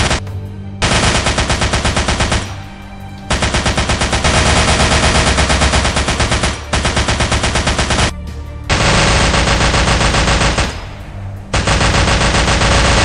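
Dubbed-in machine-gun sound effect: long bursts of rapid automatic fire with several short pauses between them.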